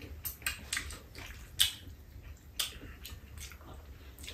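Quiet eating sounds: wet chewing and slurping, with a handful of short, sharp clicks of a spoon and chopsticks against bowls.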